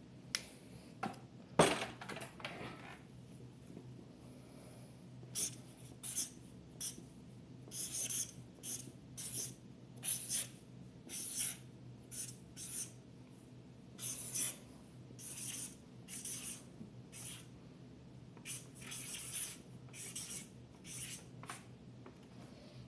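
Writing by hand: a long run of short pen strokes in irregular bursts, over a steady low room hum, with a single sharp knock about a second and a half in.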